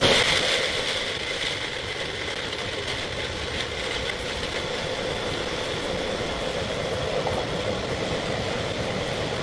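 Electric blender running at speed, blending a fruit smoothie with a few ice cubes. It starts suddenly and whirs steadily throughout.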